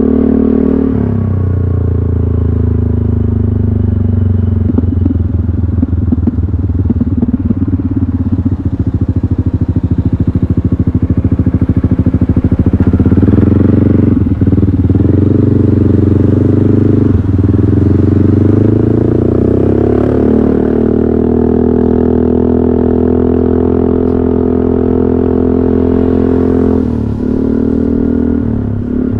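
Yamaha XMAX 300 scooter's single-cylinder engine running through a GP Racing aftermarket exhaust, heard from the rider's seat. Its revs rise and fall several times as it rides, with a rough, pulsing stretch a few seconds in and a rising pull about two-thirds of the way through.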